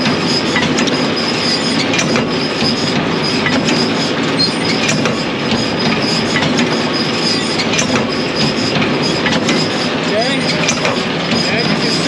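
John Deere L340 large square baler running under tractor PTO power, a loud, steady clatter of moving parts with many small clicks and a thin high whine. Its feeding system is set to one-to-one, so the feeder fork is cycling and unlatching on each stroke.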